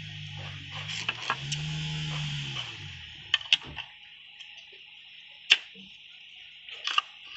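Sharp metal clicks and taps as clutch pedal parts (clevis pin, pushrod, master cylinder and bracket) are handled and fitted together, the loudest click a little past halfway. Under the first half an engine hums, rising in pitch and then fading away by about four seconds in.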